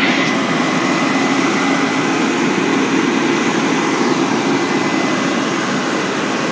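Fire department aerial ladder truck's engine running steadily to drive the ladder's hydraulics, with a thin high tone held steady over it.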